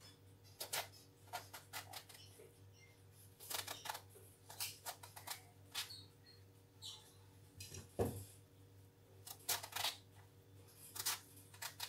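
Knife cutting lengthwise through peeled raw aubergines: a scattered series of short, crisp cuts, with a duller knock about eight seconds in. A faint steady hum runs beneath.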